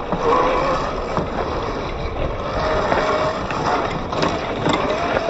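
Traxxas TRX-4 RC crawler driving over sandy dirt: the Hobbywing Quicrun Fusion brushless motor and geartrain whine, the pitch shifting with the throttle, over a steady rough rush of tyres in the dirt. A few sharp ticks sound about four seconds in.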